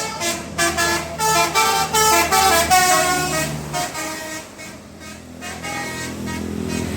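A bus's multi-tone 'telolet' horn playing a fast melody of short stepping notes for about four seconds, then a low steady engine hum that grows a little louder near the end.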